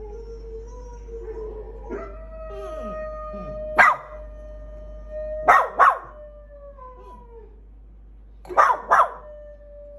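Pet dogs howling in long, drawn-out notes, broken by sharp barks: one about four seconds in, then two quick pairs, near the middle and near the end.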